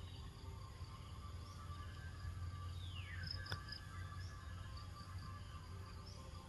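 Forest ambience: a steady low hum with faint insects chirping. About three seconds in, one high call slides downward, followed by a sharp click.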